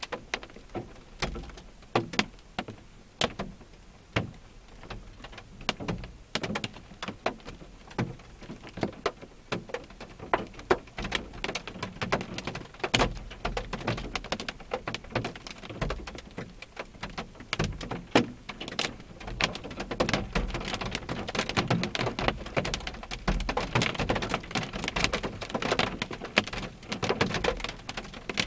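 Rain pelting a parked car's windshield and roof, heard from inside the car: separate sharp drop strikes that grow denser and louder over the second half.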